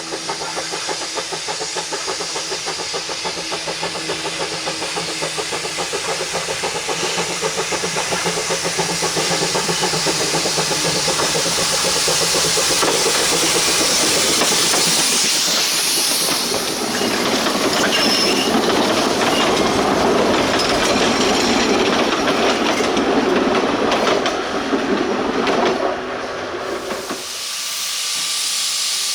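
Bridgton and Saco River Railroad steam locomotive No. 7 working with its train, steam hissing loudly over the running gear. The sound grows louder through the first half and drops off sharply near the end.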